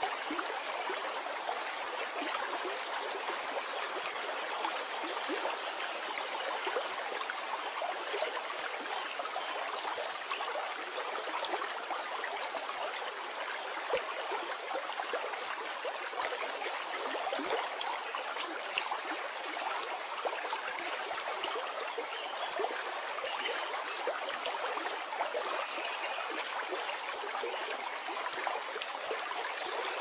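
Mountain stream rushing over rock ledges in whitewater rapids: a steady rush of water with many small splashes, and no deep rumble.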